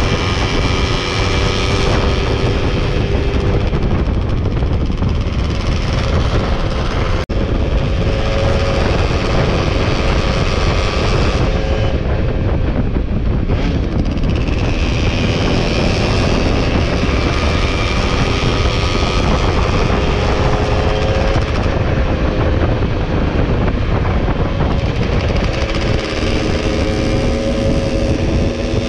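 Two-stroke Yamaha F1ZR underbone motorcycle engine running on the move, its pitch drifting slowly with the throttle, over heavy wind rumble on the microphone. The sound drops out for an instant about seven seconds in, and near the end the engine pitch climbs as it revs up.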